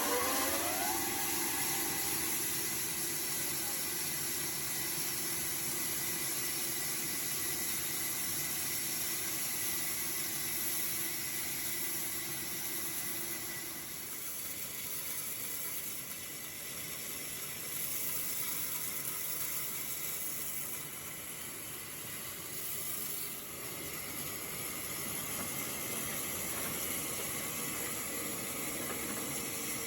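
Sawmill saw machine running: a rising whine in the first second as it comes up to speed, then a steady rushing noise with a faint hum that fades out about halfway through.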